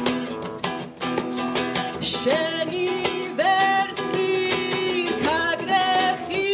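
Acoustic guitar strummed briskly, joined about two seconds in by a young woman singing the lead, her voice sliding up into held notes.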